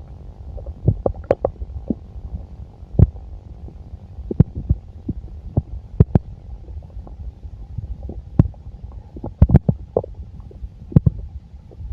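Full stomach gurgling: a steady low rumble broken by frequent, irregular sharp pops and clicks.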